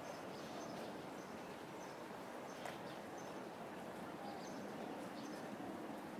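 Outdoor background ambience: a steady hum of distant city traffic with small birds chirping briefly every second or so.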